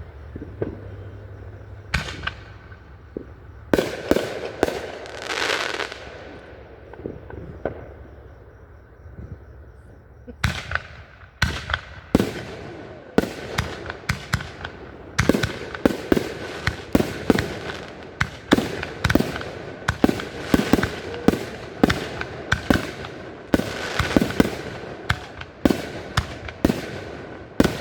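Aerial fireworks bursting. A few separate booms, some trailing a hiss, are followed from about ten seconds in by a rapid barrage of many bangs a second.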